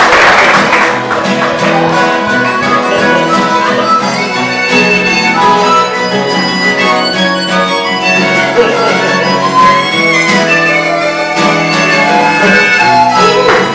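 Acoustic guitar, fiddle and harmonica playing a lively folk tune together, with the guitar strumming a steady rhythm under held harmonica chords and fiddle lines.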